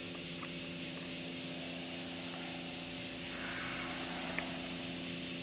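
A steady mechanical hum made of several constant pitched tones, over an even background hiss, with a few faint clicks.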